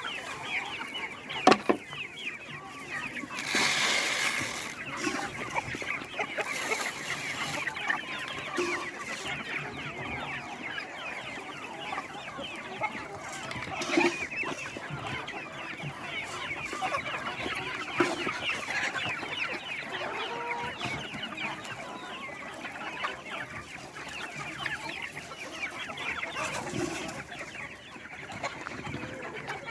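A flock of chickens clucking and calling continuously, many birds at once, with a few sharp knocks and a short rustling burst about four seconds in.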